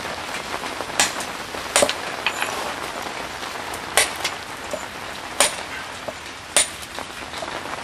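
Steel stonemason's rock hammer striking a sandstone block to knock off excess stone: about five sharp, irregular strikes a second or more apart, with lighter taps between them. A steady hiss of light rain runs underneath.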